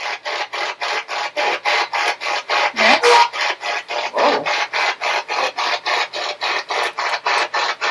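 SB-11 spirit box sweeping through radio stations: a rapid, even chop of static bursts, about five a second, with brief snatches of radio voices cutting through.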